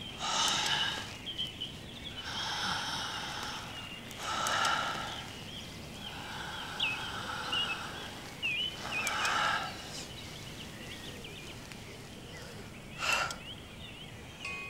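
A man breathing heavily, about six long, noisy breaths with pauses between them, the last one short and sharp near the end. Small birds chirp faintly throughout.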